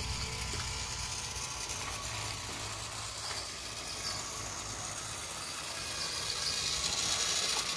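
Battery-powered toy Thomas trains running on plastic track: the small motor and gears whirring steadily, getting louder over the last couple of seconds as the trains come closer.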